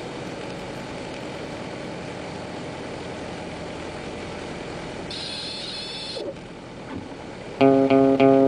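Steady cockpit noise of a light aircraft, engine and airflow, during a night landing. About five seconds in a high-pitched tone sounds for about a second, then the noise drops. Guitar music comes in near the end.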